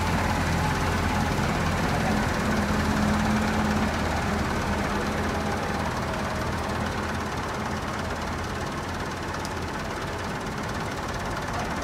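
A machine running steadily with a low hum, easing slightly in level after the first few seconds.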